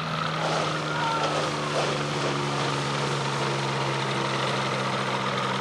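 Engine and propeller of a motorized hang glider on floats, running with a steady drone as the craft skims across the water.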